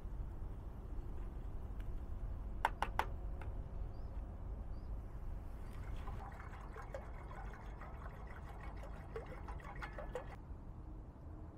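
Three quick sharp clicks, then liquid being poured and splashing for about four seconds, over a low steady rumble.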